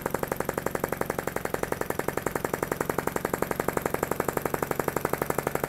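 PM Research Solar Engine #3, a small flame-licker engine, running under its own power with a rapid, even clacking on every turn. It is still warming up and is turning at a moderate speed, well below what it can reach.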